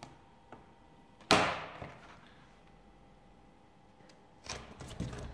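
A single sharp clack about a second in as a plastic film disc is set down on a grinding work disc. From about four and a half seconds, rustling and rubbing as hands smooth a self-adhesive abrasive paper onto it.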